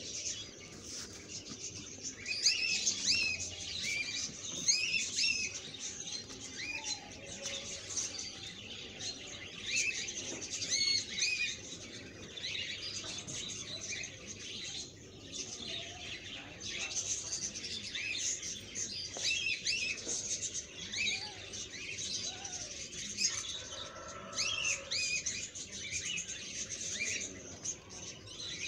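Small birds chirping over and over in short, quick, arched chirps, over a faint background hiss.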